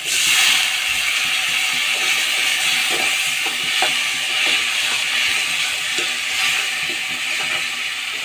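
Water poured into a kadhai of hot frying onion-tomato masala hisses and sizzles at once, then keeps sizzling, easing a little, while a spoon stirs and scrapes through the masala with light ticks.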